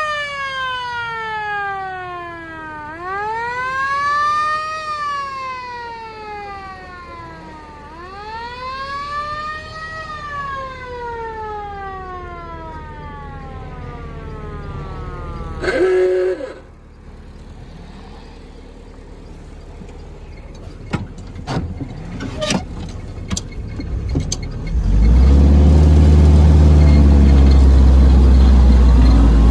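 A motor-driven siren on a WWII Ford GPW military police jeep winds up and coasts down twice, rising quickly and falling in long slow wails. About 16 seconds in there is a short loud horn blast, then a few knocks. From about 25 seconds the jeep's flathead four-cylinder engine runs loudly and steadily.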